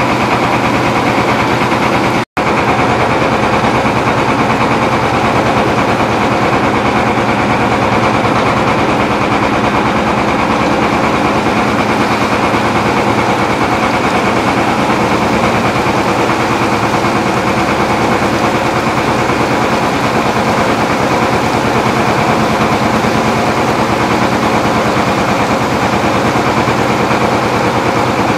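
Small boat engine running steadily with a fast, even chugging pulse. The sound drops out for an instant about two seconds in.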